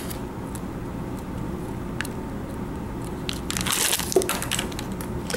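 Crinkling of a syringe's sterile plastic-and-paper packaging being handled, in a burst about three and a half seconds in. A single click comes about two seconds in, over a steady low hum.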